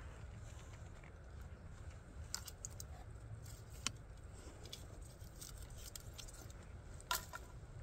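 A few short, faint ticks and taps, the loudest about seven seconds in, from a wooden turkey-call striker being handled, over a steady low rumble of wind.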